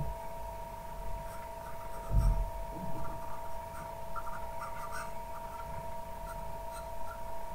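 A steady two-pitched electrical whine from the recording setup, with faint scratching and small clicks from painting on the computer, and a low thump a little over two seconds in.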